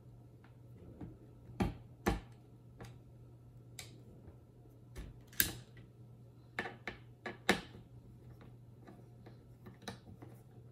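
AMD's torque-limiting screw tool turning the sTRX4 socket frame screws: scattered sharp clicks and ticks of the tool on the screws. The louder clicks fall a couple of seconds in and in a cluster in the second half.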